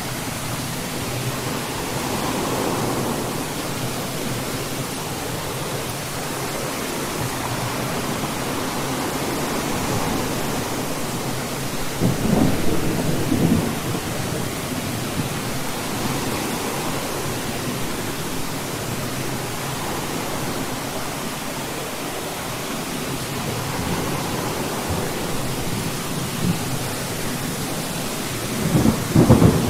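Steady rain falling during a thunderstorm, with a roll of thunder about twelve seconds in and another near the end.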